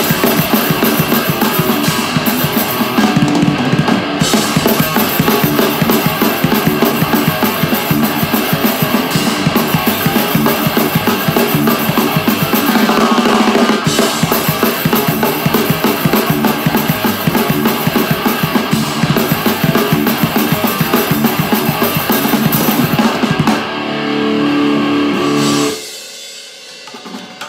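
Acoustic drum kit played fast in a thrash metal style, with kick, snare and cymbals hit in a dense, driving beat. Shortly before the end the beat stops, a sustained ringing sound holds for about two seconds, then drops off sharply.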